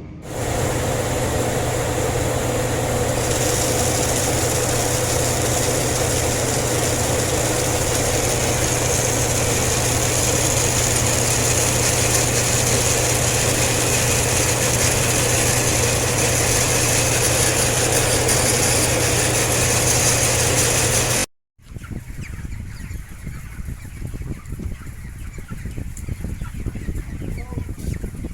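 Steady hum of a broiler house's tunnel-ventilation exhaust fans with a flock of broiler chickens clucking. About two-thirds of the way through it cuts off abruptly, giving way to a quieter, uneven stretch of the flock's sounds.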